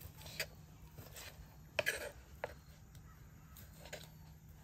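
Knife slicing cooked chicken tenderloins on a wooden cutting board. The blade knocks lightly on the board about six times at uneven intervals, the loudest just under two seconds in.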